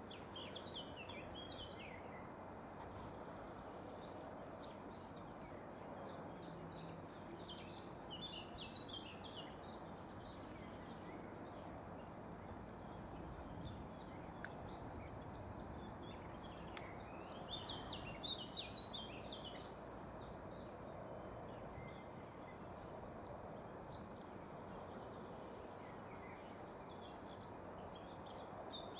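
Songbirds singing in several long runs of quick, high chirps over a steady background hiss.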